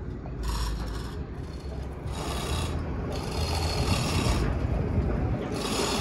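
Ratchet lever hoist being worked to pull a piece of steel roller-coaster track to the right angle: a rasping ratchet noise that comes and goes in about four stretches of roughly a second each, over a steady low rumble.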